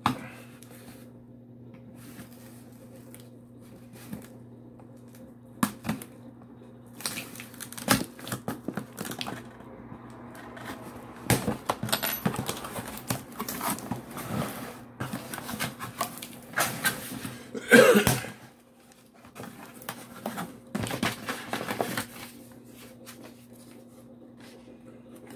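Packing tape being picked at, peeled and torn off a cardboard box, then the cardboard flaps pulled open: scattered scratching, crackling and ripping, busiest in the middle, with the loudest rip about 18 seconds in. A steady low hum runs underneath.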